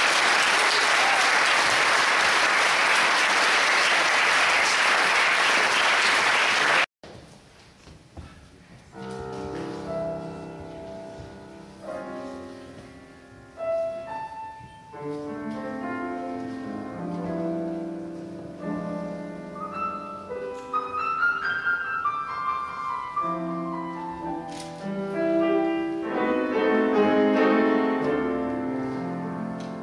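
Audience applauding loudly for about seven seconds, cut off abruptly, then a piano begins playing alone, with ringing chords and melody notes.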